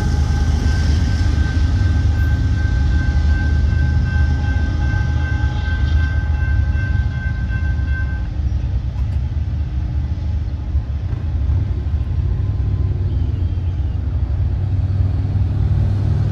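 Low, steady rumble of a Union Pacific freight train moving away from a grade crossing, with steady high tones over it that stop about halfway through.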